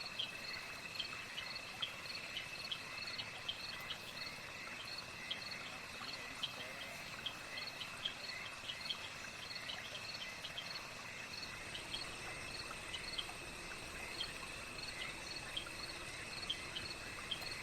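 Night insect chorus of crickets and other insects: a steady high trill under short chirps that repeat irregularly, about one or two a second. About two-thirds of the way in, a second, higher-pitched steady trill joins.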